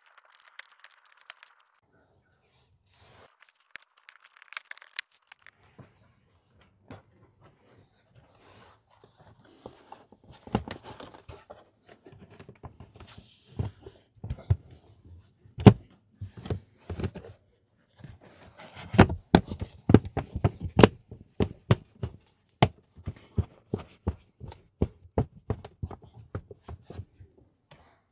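Carpeted footwell trim panel of a Tesla Model Y being refitted by hand: rustling and scraping of the panel against the carpet at first, then a long run of knocks and thumps as it is pressed and tapped into its clips.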